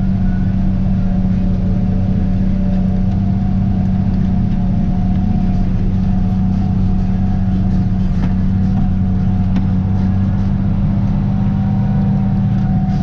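Tractor engine and pull-type forage harvester running steadily under load while chopping standing corn: a constant low drone that holds its pitch throughout.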